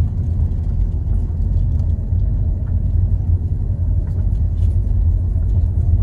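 Steady low rumble of a car driving slowly, heard from inside the cabin: engine and tyre noise with a few faint ticks and rattles.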